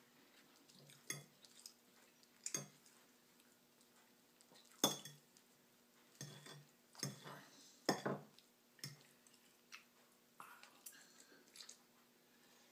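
Metal fork clinking and scraping against a ceramic plate in about a dozen short, irregular strokes, the loudest about five seconds in.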